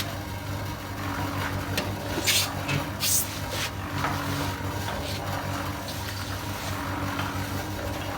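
Concrete mixer running: its engine hums steadily while the drum turns the mix, with two brief sharp noises about two and three seconds in.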